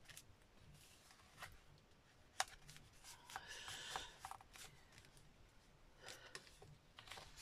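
Faint rustling of cardstock being shifted and pressed down by hand, with a few light taps, the sharpest about two and a half seconds in.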